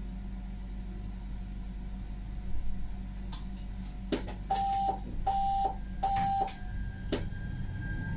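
Alstom Citadis tram standing with a steady low hum from its onboard equipment; about halfway through, three short electronic beeps from the tram, framed by clicks, then a faint whine from the traction motors builds as it starts to pull away.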